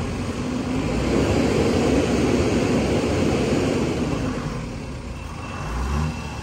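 Heavy truck engine working under load, the rumble swelling to a peak about two seconds in and then easing off.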